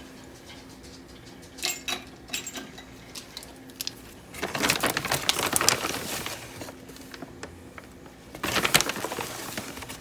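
Kitchen handling sounds while stevia is measured out for a shortcake batter: a couple of small clinks, then two stretches of rustling and scraping, over a faint steady hum.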